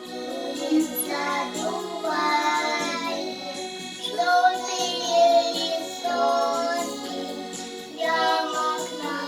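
A group of young children singing a children's song in Russian, the sung phrases rising and falling in pitch.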